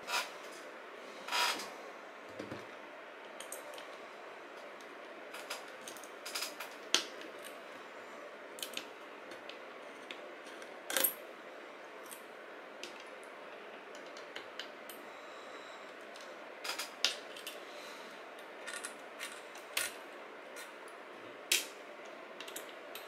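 Small metal clicks and taps of a precision screwdriver and tiny screws as the circuit board is unscrewed from a 3.5-inch hard drive, coming irregularly, a few every couple of seconds, over a faint steady hiss.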